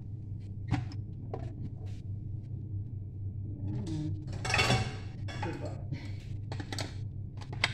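Kitchen handling sounds: a few light clicks and knocks, and a short clatter of dishes about four and a half seconds in, over a steady low hum.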